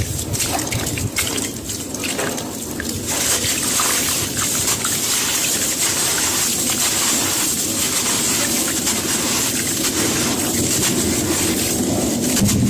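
Gritty cement crumbling and dropping into water, with a continuous gushing, trickling wash of water. It crackles with small bits in the first few seconds, then settles into a steadier rush.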